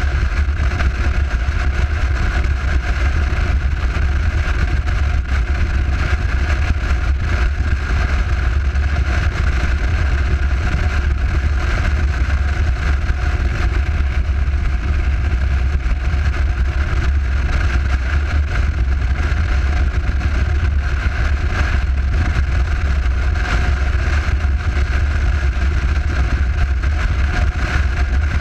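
Motorcycle cruising at a steady highway speed, recorded from behind its windscreen: a loud, unchanging low drone of engine and riding noise.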